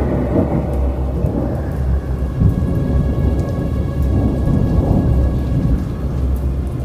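Rolling thunder rumbling in low swells over steady heavy rain.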